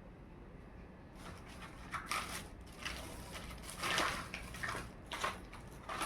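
Hands unboxing a miniature toy makeup kit: plastic packaging and small plastic pieces crinkling and rustling in irregular bursts, starting about a second in.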